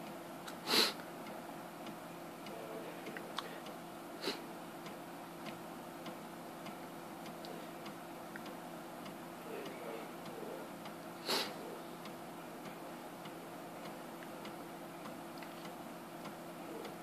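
1.44 MB floppy drive in a Philips PM3585 logic analyzer reading during boot: sparse ticks and clicks of the drive head over a steady low hum. Two louder short rushes of noise come about a second in and near eleven seconds.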